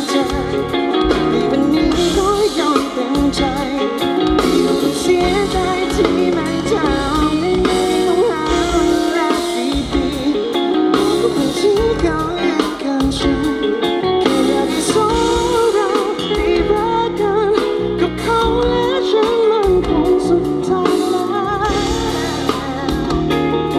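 A live band playing a song: a singer holding a wavering melody over guitar, bass and drums.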